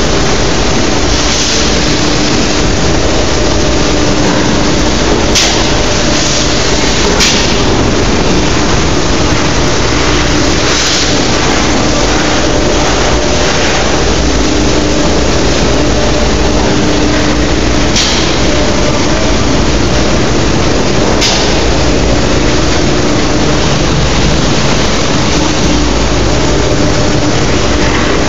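Strippit FC1250M CNC turret punch press running with steady, loud machine noise and a low hum. There are four short sharp hisses, two in the first third and two more past the middle.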